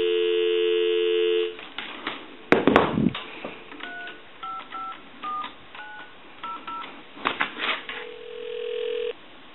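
Telephone dial tone in a Western Electric single-slot payphone handset. It stops about a second and a half in, followed by a thump. Then seven touch-tone digits are dialed, a few clicks follow, and a short ringback tone cuts off suddenly as the call is answered.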